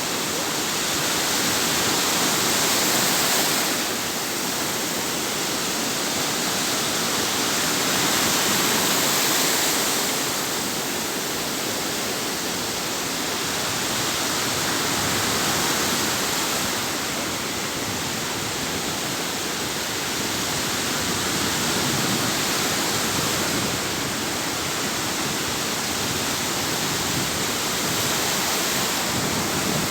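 Sea waves: a steady rush of surf that swells and eases every six or seven seconds.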